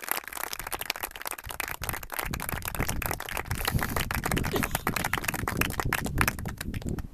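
Wedding guests applauding, a dense patter of hand claps that cuts off at the very end, with a low rumble on the microphone from about two seconds in.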